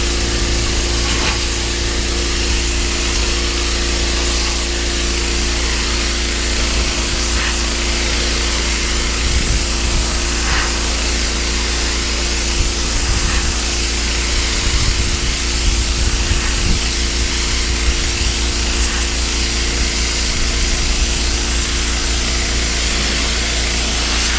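Pressure washer running steadily, its water jet spraying onto weathered wooden deck boards to blast dirt, mold and mildew out of the wood, with the machine's motor humming under the hiss.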